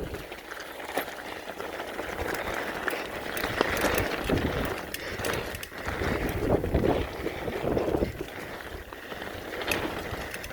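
Mountain bike running fast down a dirt trail: an uneven rumble of tyres over the ground that swells and fades, with scattered sharp clicks and rattles from the bike.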